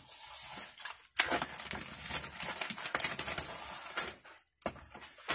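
Rustling and light clicking of packaging and tools being handled while a parcel is unpacked, with a short break near the end.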